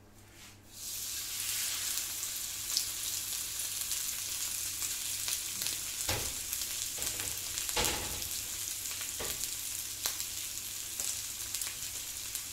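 Rava-coated king fish steak frying in hot coconut oil in a non-stick pan: the sizzling starts about a second in as the piece is laid in, then goes on steadily. A few brief knocks around the middle.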